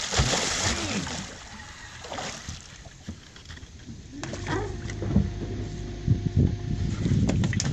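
Water splashing around an aluminium fishing boat for the first second. A steady low hum starts about four seconds in, and a few sharp knocks come near the end.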